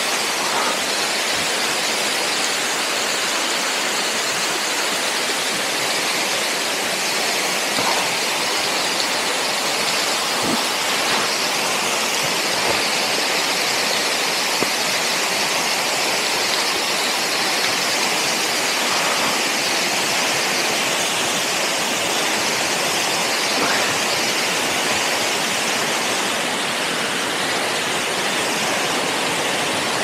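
Steady rush of the Bovska Skaklya waterfall, a tall two-tier mountain fall, with a few faint short knocks.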